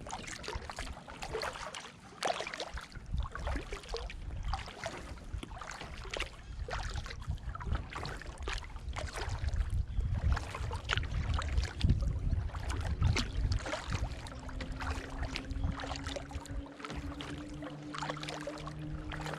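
Kayak paddling: the paddle dips and splashes, and water drips and laps against the hull. About fourteen seconds in, a steady low hum joins it.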